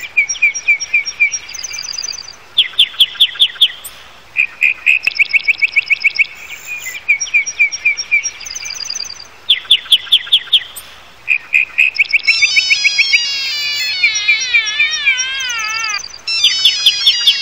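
Mobile phone alarm ringing: a looping electronic tone of repeated groups of rapid high chirps and short beeps, joined about twelve seconds in by tones stepping up and down in quick zigzags.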